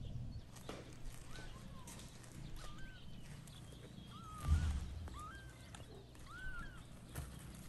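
Newborn kitten mewing: a series of short, thin, rising-and-falling mews, about six of them, with a faint rustle of the puppy pad. A low thump about halfway through is the loudest sound.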